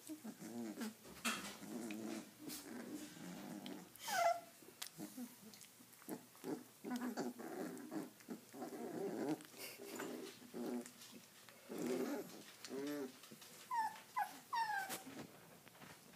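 Three-week-old Redbone coonhound puppies play-wrestling, with many short, low growls and grunts throughout. A few high yelps fall in pitch, one about four seconds in and several close together near the end.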